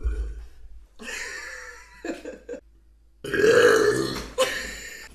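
A person burping several times: a first burp about a second in, a couple of short ones, then a long, loud, low burp just past the middle followed by a shorter one.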